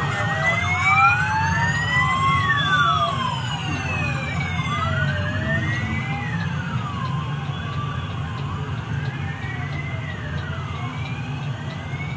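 Several police escort sirens wailing at once, each sliding slowly up and down in pitch over a couple of seconds and out of step with the others, over a steady low rumble of motorcycle and bus engines.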